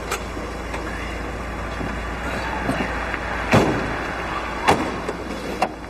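Car engine running steadily while the car's doors are opened and shut. There is a loud door thunk about three and a half seconds in and lighter clunks after it.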